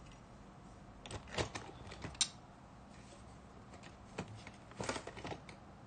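Scattered small clicks and taps of metal hand tools being handled and set down on a workbench: a cluster about a second in, one sharp click at about two seconds, and another cluster near the end.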